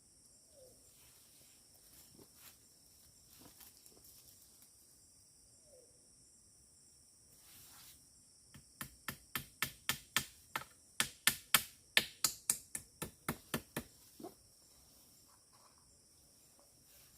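A quick, even run of sharp taps or clicks, about four a second, for some five seconds starting about halfway in, over a faint steady insect hum.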